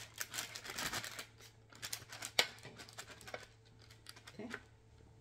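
A spoon working meringue onto a baking sheet: rustling and scraping at first, then a few sharp clicks, the loudest about two and a half seconds in.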